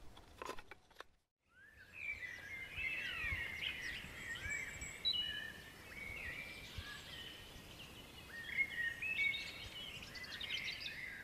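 Woodland birdsong: several small birds chirping and whistling at once, with quick rising and falling notes. A few faint knocks come first, then a brief moment of silence before the birdsong begins.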